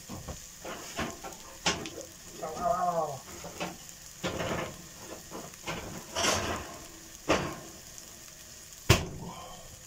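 Floured beef chunks and onions sizzling as they brown in an enamelled cast-iron casserole, with a sharp pop or crackle every second or so, the loudest about nine seconds in. A short murmured voice sound comes about two and a half seconds in.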